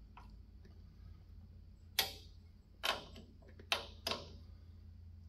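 Sharp clicks of hand tools on front-end suspension parts: four distinct clicks within about two seconds, unevenly spaced, over a faint steady low hum.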